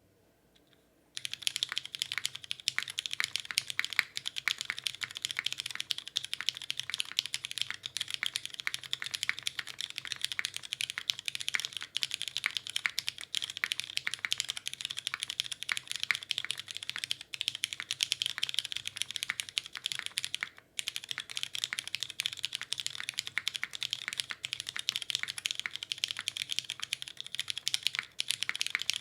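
Fast, continuous typing on a Kohaku custom mechanical keyboard with lubed Cherry MX Brown Hyperglide tactile switches, an aluminium plate with no dampening, and GMK keycaps: a dense run of keystroke clacks. The typing starts about a second in and breaks off briefly about two-thirds of the way through.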